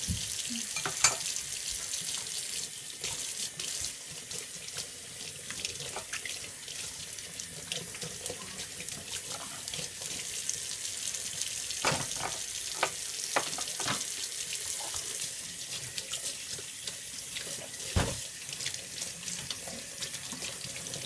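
Kitchen tap running steadily into a stainless steel sink as dishes are washed by hand, with occasional sharp knocks and clatters of dishes and a plastic container against the sink, the loudest about a second in.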